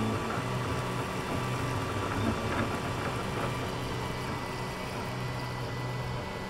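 RepRap-style FDM 3D printer at work: its stepper motors hum in short runs that start, stop and change pitch as the print head moves back and forth laying down plastic, over the steady whir of its cooling fans.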